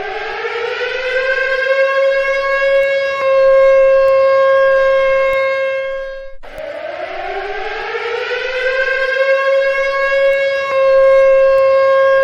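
Civil defense siren sounding. Its tone winds up in pitch over about three seconds and then holds steady, breaks off briefly about six seconds in, and winds up and holds again.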